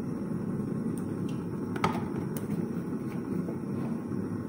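Steady low rumble of a gas stove burner heating a pot of cooking oil, with a couple of faint clicks near the middle.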